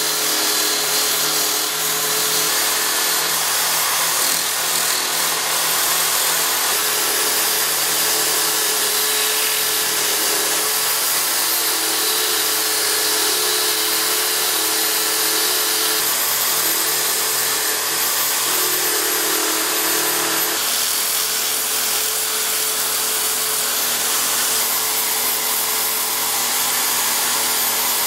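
Small wood lathe running steadily with a motor hum, a purpleheart handle blank spinning on it as it is cut with a chisel and then sanded. The sound changes about twenty seconds in.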